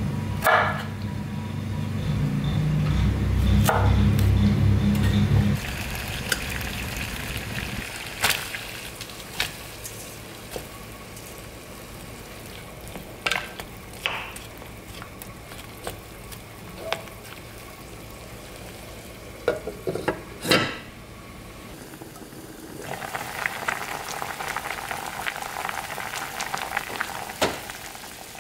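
Kitchen prep: a knife knocks on a wooden cutting board as broccoli is cut, over a low hum that stops about five seconds in. After that come scattered knocks of a utensil in a pot as the florets are stirred, and near the end a pot of water bubbling at the boil.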